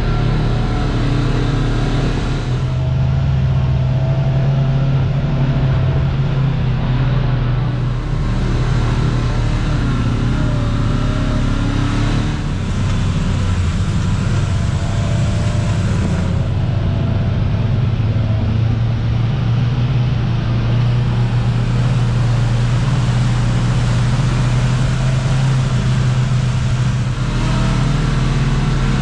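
Kawasaki Teryx KRX 1000 side-by-side's parallel-twin engine running as a steady low drone while driving along a dirt trail, with a steady rushing noise over it.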